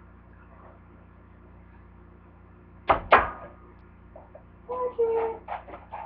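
A clamp-lid canister is being closed. There are two sharp knocks about three seconds in, then a brief squeak and a run of quick clicks near the end as the lid is seated and the clasp fastened.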